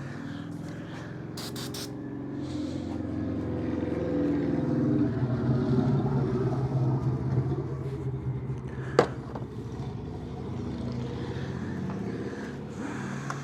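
A vehicle engine running steadily at a low pitch. It grows louder from about four seconds in, then eases back. There is one sharp click about nine seconds in.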